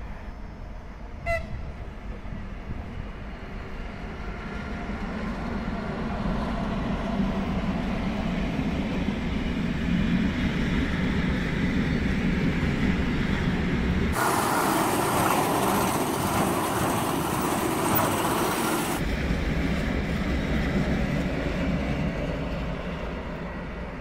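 Freight train hauled by electric locomotives passing. A short horn toot comes about a second in, then the rumble of the locomotives and wagons builds and holds, with a loud hiss for several seconds in the middle, and fades near the end.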